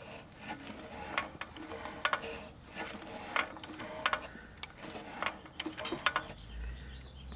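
Irregular light clicks and ticks from the 1950s Toro Sportlawn mower's small single-cylinder engine being turned over slowly by hand with its cylinder head off, the parts clicking as they move through the exhaust stroke.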